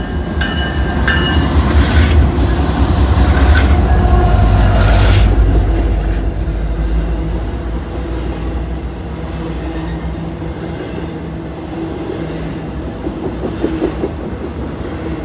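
Norfolk Southern GE freight locomotives, a Dash 9 leading, passing close below with a heavy diesel rumble that is loudest over the first half, then easing into the steady rumble and clatter of intermodal trailer cars rolling by. A thin high wheel squeal rises faintly through the middle.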